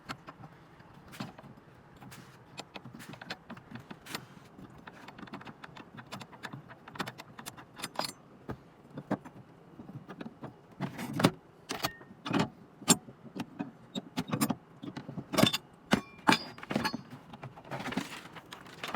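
Metal clinking and rattling: a long run of sharp clicks and knocks, some with a brief metallic ring, sparse at first and coming thicker and louder about halfway through.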